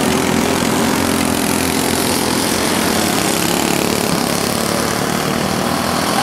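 Several racing go-kart engines buzzing at high revs as the karts lap the track, a steady, dense drone with engine pitches drifting up and down as individual karts accelerate and pass.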